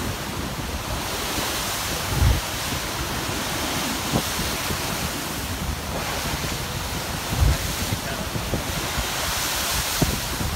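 Heavy surf crashing and surging into a rocky inlet, a steady roar of breaking water and spray, with wind buffeting the microphone. Low thumps stand out about two seconds in, at about seven and a half seconds, and near the end.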